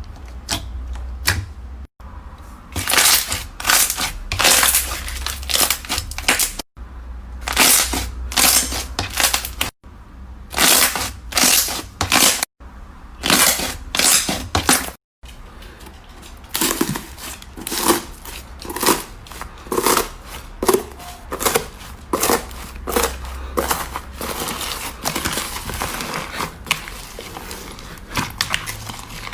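Slime being squeezed, pressed and poked by hand, giving rapid crackling and popping squelches. The sound breaks off abruptly several times in the first half as one short clip gives way to the next.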